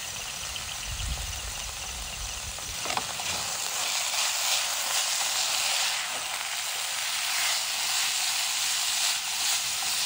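Grated vegetables frying in hot oil in a pan, sizzling steadily, the sizzle growing louder about three seconds in.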